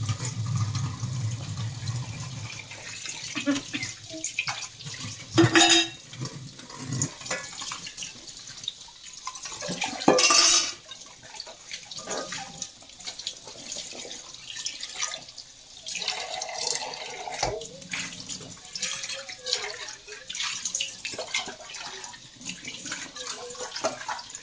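Tap water running into a sink during washing up, with scattered knocks and clinks of handling; two brief, much louder bursts of noise come about five and ten seconds in.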